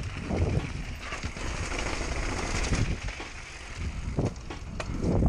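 Downhill mountain bike ridden fast over pavement and steps: rushing wind and tyre noise, with the bike's frame and chain rattling and several heavy knocks as it hits bumps and steps.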